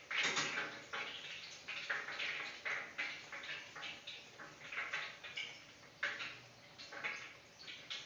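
Pastel frying in hot oil in an electric deep fryer: the oil sizzles and crackles unevenly, in quick irregular spurts.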